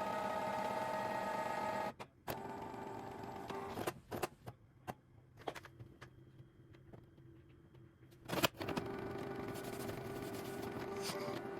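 Canon printer working through its colour-fixing cycle: a steady motor whir stops about two seconds in, followed by a series of clicks and knocks, then the motor whir starts again at about eight and a half seconds.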